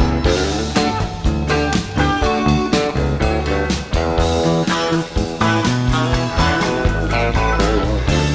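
Live rock band playing an instrumental break between sung verses, with electric guitar to the fore over bass and drums.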